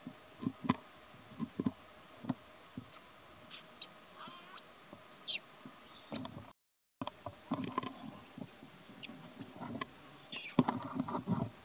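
Close, wet chewing and lip-smacking clicks of a young macaque eating a piece of corn, with several high, thin rising-and-falling chirps above them. The sound cuts out completely for about half a second just past the middle.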